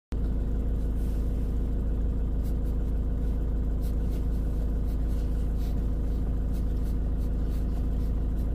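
Steady low hum of a van engine idling, heard from inside the cab, with a few faint clicks over it.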